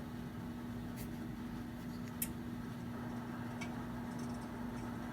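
PuraFlame Western electric fireplace insert running with a steady hum, with three faint, sharp pops from its simulated fire crackling sound.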